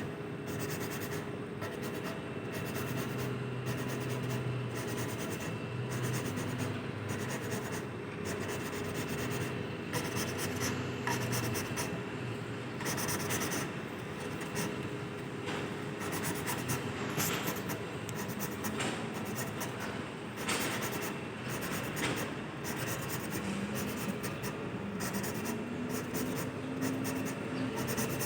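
Valves of an Isuzu 6BG1 diesel engine being hand-lapped against their seats, making repeated gritty scratching and rubbing that goes on without a break. The valves are being reseated because they leak. A faint steady hum runs underneath.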